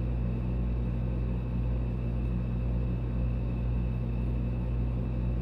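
A steady, low mechanical hum made of a few fixed tones, unchanging in level.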